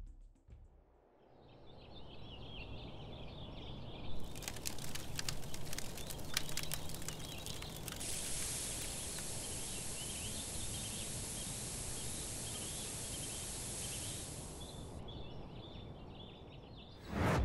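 Outdoor bush ambience with birds calling and a steady hiss. There is a run of sharp clicks in the first half.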